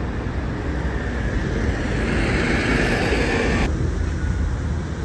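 Street traffic noise with a steady low rumble. A passing vehicle's sound swells over about two seconds, then cuts off abruptly about three and a half seconds in, leaving a quieter low rumble.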